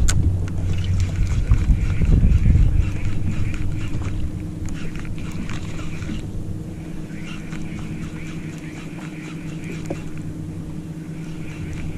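Electric bow-mounted trolling motor humming steadily, with wind buffeting the microphone in the first few seconds. Over it, a spinning reel whirs as it is cranked to retrieve a lure, pausing briefly twice.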